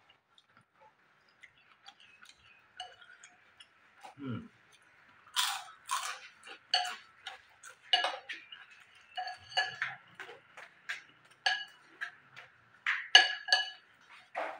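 Spoon and chopsticks clinking against a ceramic bowl of noodle soup, with chewing and crunching of fried crackers. The clinks come irregularly, many of them, from about five seconds in.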